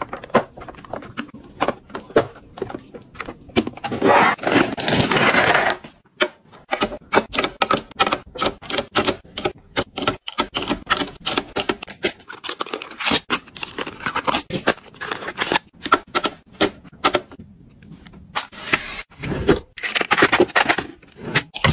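Quick clicks and clacks of hard plastic and glass being handled: a plastic lid fitted onto a storage box and small gel nail polish bottles set one by one into a plastic organizer tray. A few longer scraping stretches, the loudest about four seconds in, break up the tapping.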